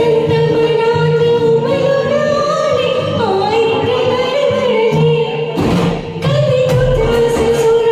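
A singer sings a Marathi song over a karaoke backing track, holding long, steady notes, with a brief break about six seconds in.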